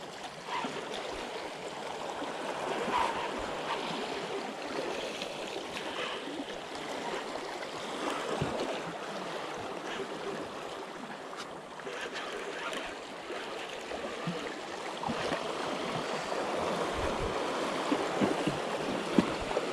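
Sea water washing against rocks, a steady wash with a few faint knocks scattered through it.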